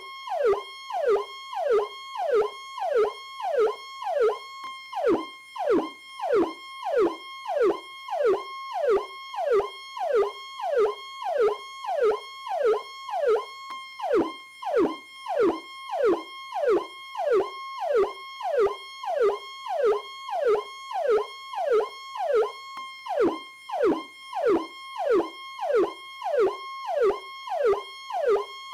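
Powercall electronic police siren sounding continuously. It repeats a quick downward sweep in pitch about three times every two seconds over a steady high tone.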